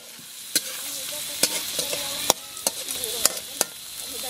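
Crabs, garlic, ginger and onion sizzling in a metal wok as they are stir-fried, with a metal spoon scraping and clinking against the pan about six times at irregular intervals.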